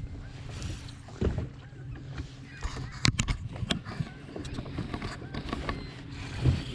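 A boat's motor running steadily, with a cluster of sharp knocks and clicks about three seconds in.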